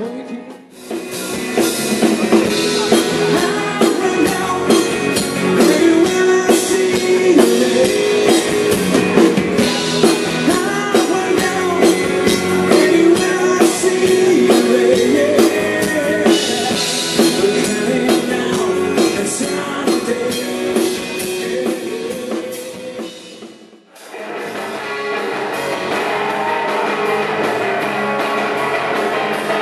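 Rock band playing: drum kit, guitar and singing. The music drops out briefly about a second in and again about three-quarters of the way through, where one song gives way to another.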